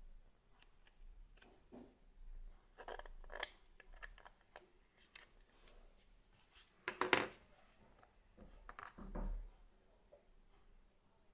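Small metal and plastic atomizer parts being handled with fingers and tweezers: light clicks and taps, with foam rubbing. The loudest cluster of clicks comes about seven seconds in, followed by a duller rustle.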